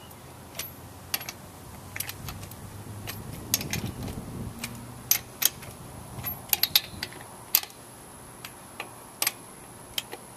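Socket wrench turning truck lug nuts to snug them: scattered sharp metallic clicks and clinks of the ratchet and socket on the nuts, coming irregularly.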